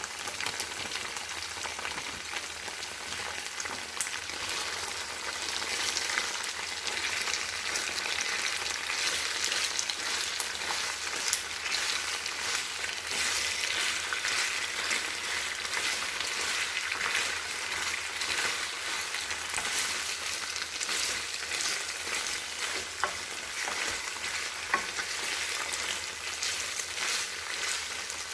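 Food sizzling in a hot frying pan, a steady hiss with scattered small pops that grows a little louder after the first few seconds.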